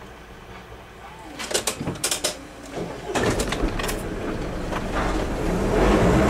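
Inside a car: a handful of sharp clicks about one and a half to two seconds in, then the car's engine and road noise rise steadily as it pulls away over the level crossing.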